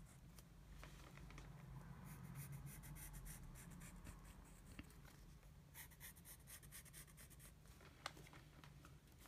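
Faint scratching of a wooden pencil drawing strokes on lined notebook paper, in two stretches. A single sharp click comes near the end.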